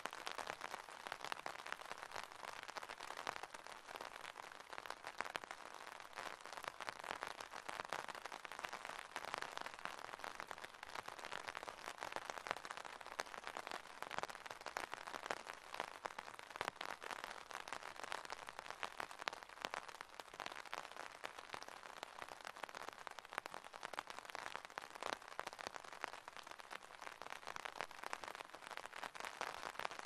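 Steady, gentle rain falling: a soft, even hiss made of a dense patter of individual drops.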